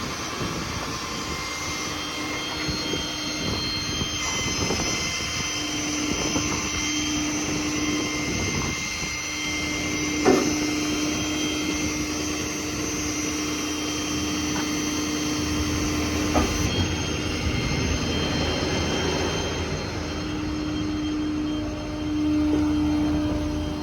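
Hydraulic crane on a 6.7 Power Stroke diesel service truck being operated with the engine running: a steady hydraulic whine comes in about five seconds in, drops out around sixteen seconds and returns near the end as crane functions are worked. There is a sharp clank about ten seconds in and another around sixteen seconds.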